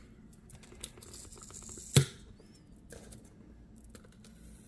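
Cardboard game box being handled and opened: light scrapes and small clicks, with one sharp knock about two seconds in and a rising scraping hiss near the end.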